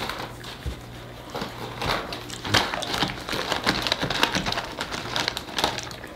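Crinkly plastic bag of Sun Chips being handled, giving a run of many short, irregular crackles.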